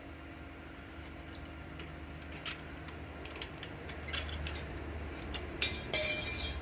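Light metallic clicks and clinks of brake pads and retaining pins being handled at a four-piston Brembo caliper, scattered at first and gathering into a louder rattle near the end, over a steady low hum.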